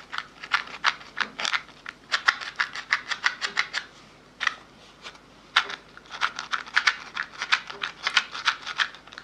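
ASMR mouth sounds close to the microphone: rapid wet clicks and smacks of the tongue and lips, several a second, in runs with a short pause about four seconds in.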